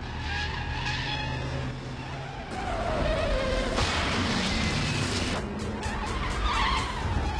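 Truck and pickup engines running hard with tyres skidding. About two and a half seconds in, a loud crash with a burst of spray as a pickup smashes through a row of roadside crash barrels, the noise lasting a few seconds. A falling tyre squeal comes near the end.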